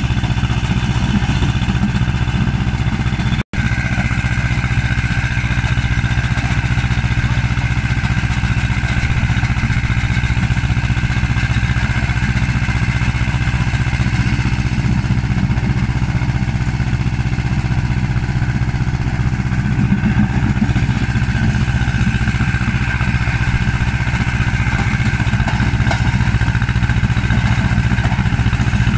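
Stone-crushing machine running steadily as it clears a stony field, with a loud, continuous heavy mechanical drone. A split-second dropout breaks the sound about three and a half seconds in.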